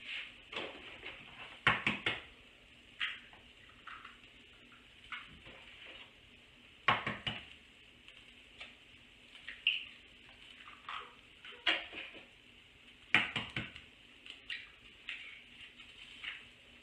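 Eggs being cracked into a bowl: irregular sharp taps and clinks of shell against the bowl's rim, coming every few seconds, some in quick clusters of two or three.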